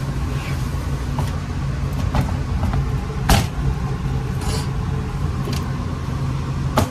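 Steady low mechanical hum of kitchen machinery, with a few scattered knocks of a cleaver and foil pan on a cutting board, the loudest about three seconds in.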